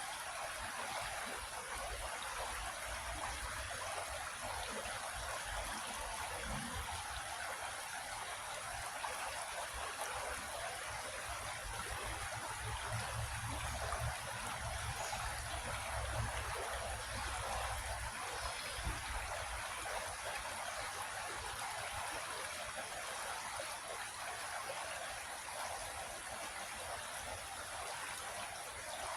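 Creek water flowing and trickling over rocks in a steady, even rush.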